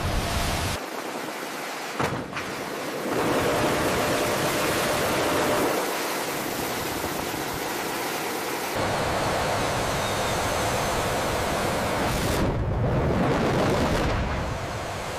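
A steady rushing noise, like surf and wind. It changes abruptly in level and tone several times.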